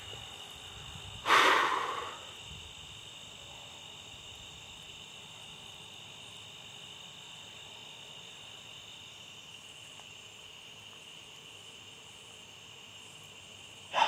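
Steady high-pitched chirring of evening insects such as crickets. About a second in, a loud heavy exhale or sigh close to the microphone, with a second short breath near the end.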